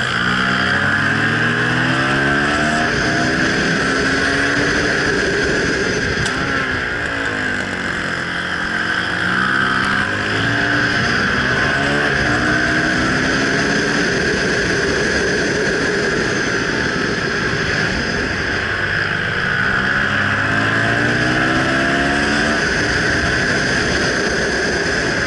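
Suzuki DR-Z400SM's single-cylinder four-stroke engine heard from on board, its pitch climbing in steps through upshifts out of the corners and dropping off into the next ones, about three times over. A steady wind rush runs underneath.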